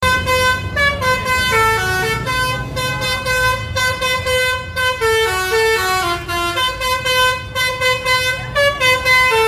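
A bus's Basuri V3 musical horn (a 'telolet' horn) playing a melody of stepped, held notes with barely a break between them, over the low rumble of the bus's engine. It cuts off near the end.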